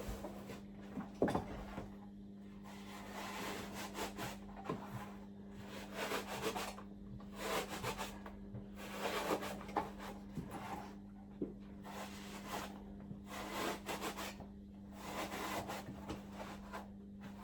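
Fire batt being cut to fit around a cable tray: a run of uneven rasping strokes of a blade through the batt, with short pauses between them.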